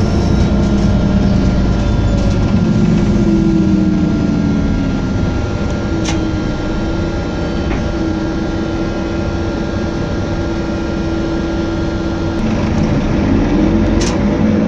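Volvo DH12D 12.1-litre six-cylinder diesel of a Volvo B12BLE bus, heard inside the cabin from the rear seats, pulling the bus along. Its note climbs, dips and settles about six seconds in, holds steady, then climbs again near the end, with a couple of sharp rattles from the cabin.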